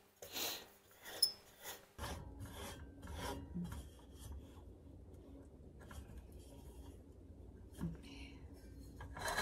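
Light metal clicks and scraping from a canister camp stove being handled: the burner screwed onto its gas canister and its pot-support arms folded out.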